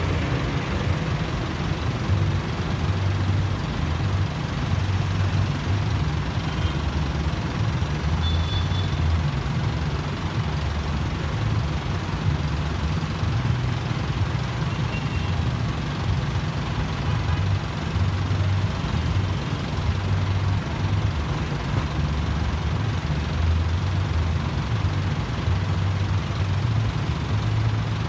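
Motorcycle and truck engines idling in stopped traffic at a red light, a steady low rumble.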